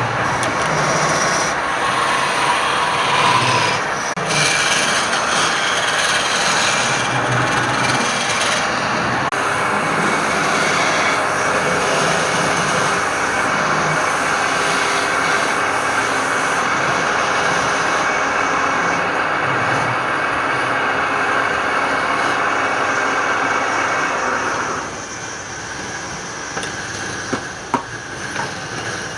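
Wood lathe spinning a workpiece while a tool is held against the turning wood, giving a steady rough hiss. It drops noticeably quieter near the end.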